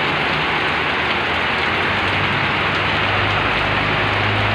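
Heavy rain pouring steadily onto a wet concrete yard, a dense even hiss of drops. A low steady hum joins about two and a half seconds in.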